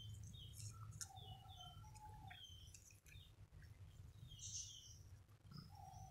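Faint bird chirps, short scattered notes, over a low steady background hum.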